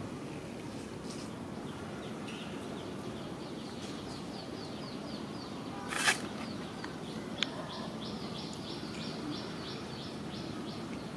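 A bird calling in two runs of short, high notes repeated about four times a second, over a steady outdoor background. A loud, sharp noise breaks in about six seconds in, between the runs, and there is a brief click a little later.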